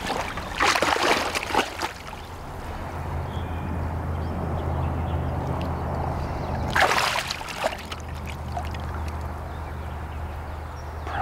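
Water splashing and sloshing in a landing net holding a freshly netted musky, in two spells: about a second in and again about seven seconds in. A steady low rumble runs beneath from a few seconds in.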